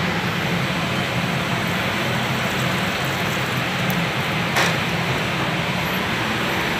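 Steady rushing noise of a commercial kitchen, with a low hum under it, and a single short click about four and a half seconds in.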